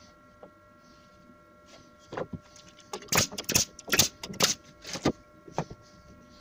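Makita pin nailer firing pins through a beech strip into a ply base: about five sharp shots in quick succession starting about three seconds in, after a softer knock or two as the wood is positioned.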